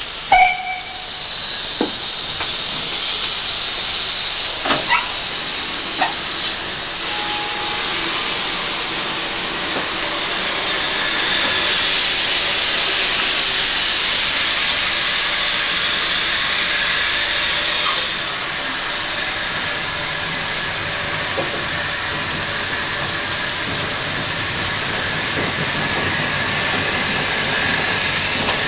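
Steady loud steam hiss on the footplate of BR Standard Class 2 2-6-0 No. 78022 while it is working, swelling toward the middle and dropping a step about two-thirds of the way through. A few sharp metallic clicks come in the first few seconds.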